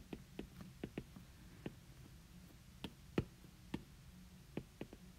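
Stylus tip tapping and clicking on a tablet's glass screen during handwriting: irregular light clicks, a few per second, one louder tap about three seconds in.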